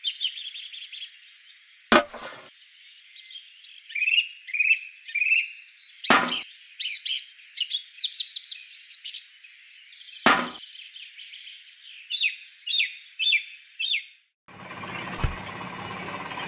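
Birds chirping and twittering, with three sharp clicks about four seconds apart. Near the end the birdsong stops and a steady whirring noise begins, with two low thumps.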